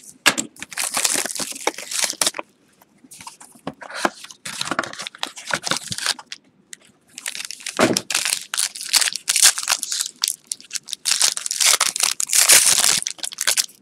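Cardboard trading-card box being pulled open, then the foil wrapper of the card pack inside crinkling and tearing as it is ripped open. It comes in bursts of crackling with brief pauses, loudest near the end.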